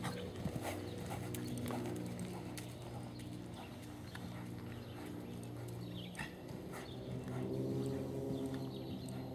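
Background music with slow, sustained chords that change every second or so, over a few scattered soft knocks.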